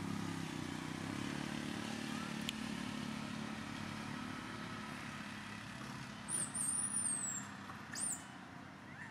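A motor vehicle's engine drones steadily and slowly fades as it passes. About six seconds in come a few sharp, high chirps, the loudest sounds here.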